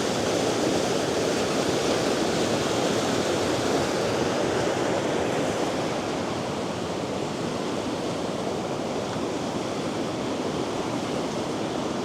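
A river in flood after rain rushing fast through rocky rapids: a steady, loud rush of water that eases a little from about halfway.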